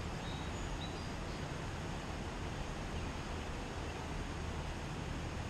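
Steady outdoor background noise: an even hiss over a constant low rumble, with a few short, faint high chirps about half a second to a second in.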